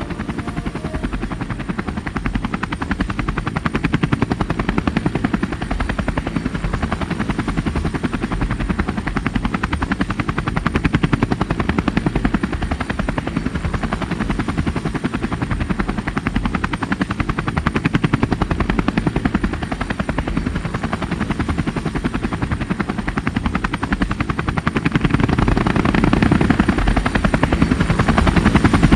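Camera drone's rotors buzzing steadily with a fast chop, growing louder near the end.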